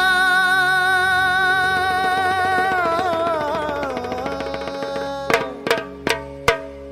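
Music from a Marathi Ganpati devotional song: a long held, wavering note that slowly glides downward, then four sharp drum strokes in the last two seconds.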